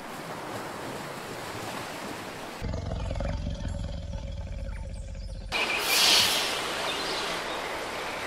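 A sequence of separate animal clips. It opens with a thin hiss of sea and wind where a sperm whale breaks the surface. About two and a half seconds in it cuts to a lion's deep, low roar, and about five and a half seconds in it cuts to a broad rushing noise that peaks soon after.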